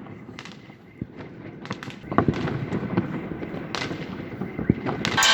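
Fireworks going off, with many irregular bangs and crackles over a low rumble. They get denser and louder about two seconds in.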